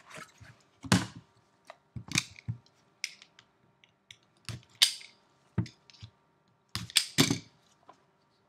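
Cardboard trading-card boxes handled by gloved hands: a dozen or so sharp knocks, taps and clicks at irregular intervals as the boxes are set down, opened and lifted.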